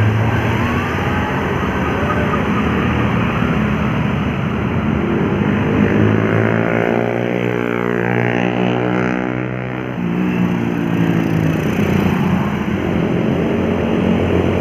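Road traffic: vehicle engines running steadily, with one vehicle's engine passing close about six to ten seconds in.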